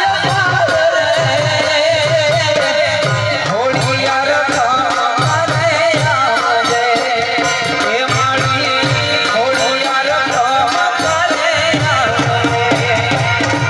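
Gujarati devotional garba music: a wavering melody line over a steady, regular drum beat with fast rattling percussion.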